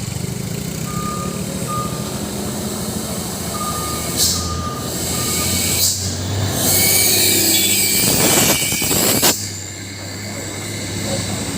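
Truck engine running steadily, with a few short beeps at one pitch in the first four seconds like a reversing alarm. Short bursts of air hiss follow about four and six seconds in. Then a loud hiss of air with a steady high tone lasts about three seconds before cutting off.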